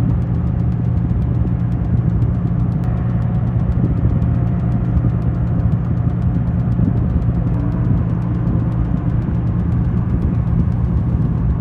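A large engine running steadily at a constant speed: a deep, even drone that does not rise or fall.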